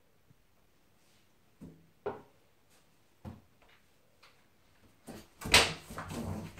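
A few separate knocks against an acrylic bathtub, then about five seconds in a sudden loud scuffle as a Bengal cat pounces on a pit bull puppy in the tub: paws scrabbling and bodies bumping the tub's walls.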